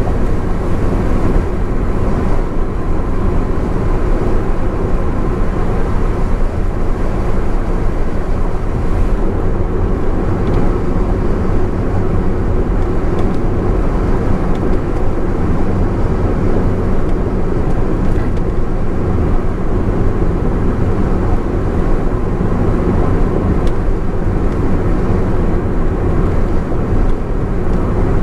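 Honda S660 driving at expressway speed: a steady mix of engine, tyre and wind noise with no changes.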